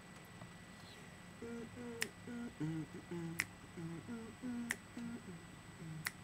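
A man humming a slow tune with his mouth closed and snapping his fingers on a steady beat, about one snap every second and a third. The humming starts about a second and a half in.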